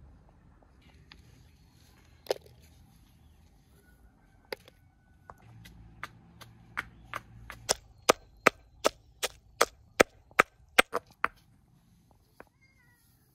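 Stone pestle pounding spices in a hollowed stone mortar: a few scattered sharp stone-on-stone knocks, then from about six and a half seconds in an even run of about a dozen strikes, roughly two and a half a second, stopping about two seconds before the end.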